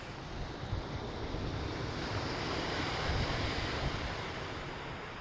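Black Sea surf washing onto the shore, a wave swelling about halfway through and then easing off, with wind buffeting the microphone.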